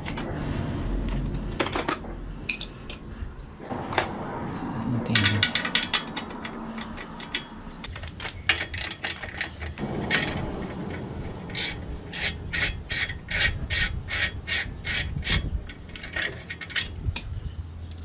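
Rubbing and scraping of exhaust pipe parts being handled, with scattered knocks. In the second half comes a run of about ten evenly spaced rasping strokes, about two and a half a second.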